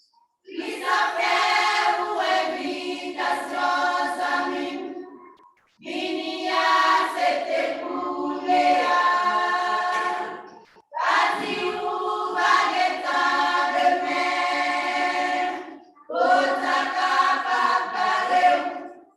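A choir singing in four phrases of about five seconds each, with brief silences between them.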